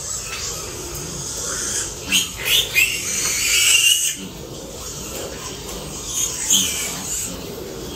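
A large group of piglets squealing and grunting in a crowded pen, with loud high squeals about two to four seconds in and again later.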